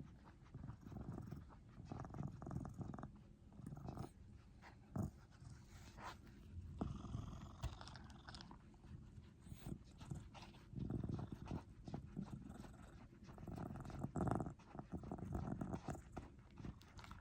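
A cat close to the microphone making soft, uneven low sounds with scattered small clicks.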